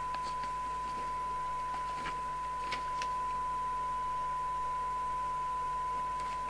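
Steady single-pitched test tone from a Thunderpole T2000 CB radio's speaker: the receiver demodulating the signal generator's test signal. A few faint paper rustles come from the radio's manual pages being turned about two to three seconds in.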